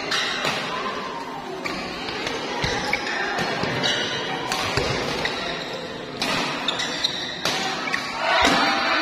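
Badminton rally in a large indoor hall: irregular sharp racket hits on the shuttlecock and players' footfalls on the court, over a steady background of spectator chatter.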